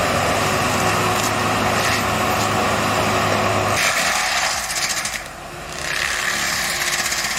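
Heavy engine-driven forestry machinery running and cutting or grinding wood, a dense, steady din. The low engine hum drops out about halfway through, and the noise briefly eases before picking up again.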